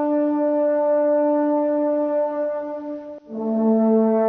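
Music of slow, held chords. It breaks off briefly about three seconds in and goes on with a new chord.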